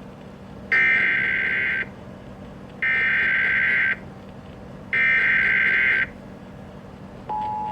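Emergency Alert System SAME header: three identical bursts of screeching digital data tones, each about a second long with a second's gap between them, encoding an incoming severe thunderstorm warning. About seven seconds in, the steady two-tone EAS attention signal begins.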